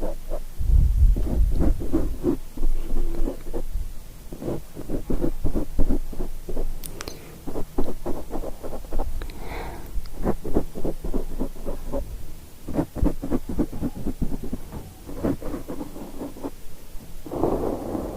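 Rubbing and tapping directly on a microphone: a rapid, irregular run of scratchy strokes with deep muffled thumps from the mic's body, about a second in and again near the end.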